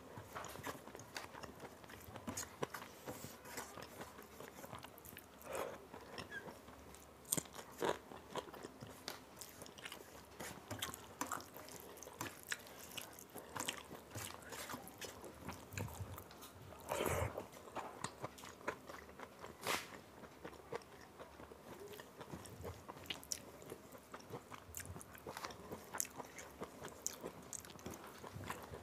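Eating sounds: chewing and wet mouth clicks, with fingers mixing rice and dal on a steel plate. Irregular small clicks run throughout, and a louder cluster comes about halfway through.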